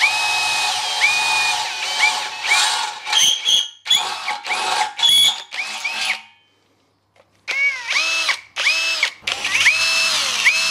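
Cordless brushless drill drilling into steel tube, run in short trigger pulses so the motor whine spins up and winds down again and again. There is a pause of about a second midway, then several more spin-ups.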